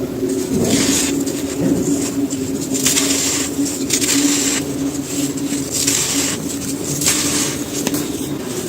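Dry sand-cement pieces being crushed and crumbled, gritty crunches coming in short bursts about once a second, over a low steady hum.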